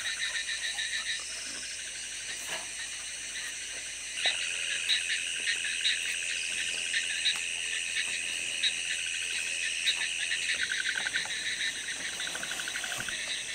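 Night chorus of crickets and other insects: steady high trilling with rapidly pulsing calls layered over it. A few faint knocks sound now and then.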